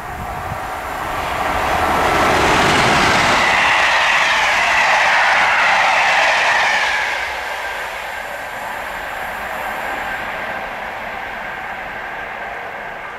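British Rail Class 90 electric locomotive 90001 and its coaches passing at speed: the rush of wheels on rail builds, is loudest for about five seconds as the train goes by, then fades as it recedes. A high tone over the noise drops in pitch as the train passes.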